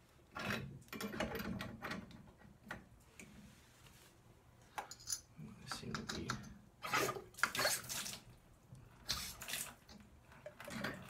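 Water running from a tub faucet in irregular short bursts, with light clinks of metal parts, while the newly installed valves are checked for leaks.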